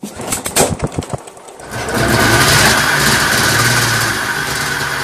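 A small engine: a quick run of sharp knocks for about a second and a half, then the engine catches and runs steadily with a high whine.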